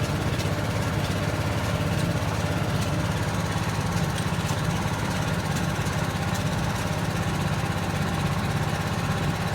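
Small engine of a hydraulic jacking machine running steadily, powering the jack cylinders on foundation piers as they lift a settled brick veneer wall.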